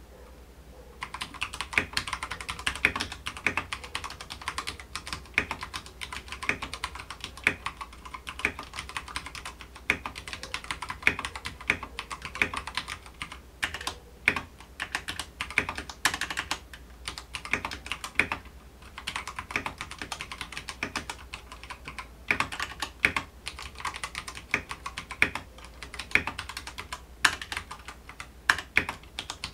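Typing at a medium pace on an Akko 3087 mechanical keyboard: a dense, uneven stream of key clicks that begins about a second in, with short pauses about halfway and just past halfway.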